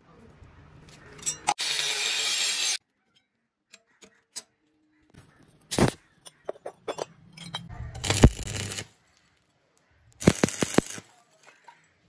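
Short snippets of metalwork on steel plate: arc-welding crackle in brief bursts, and sharp clinks and knocks of steel, split by silent gaps. The loudest is a single sharp metal knock a little past the middle.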